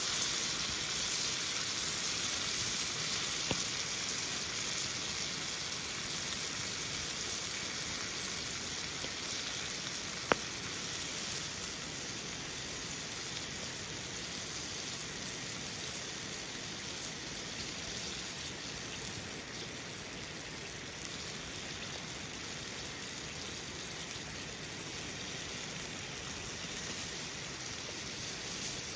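A steady hiss of noise with no tones in it, like rain, with a sharp click about ten seconds in and a couple of fainter ones.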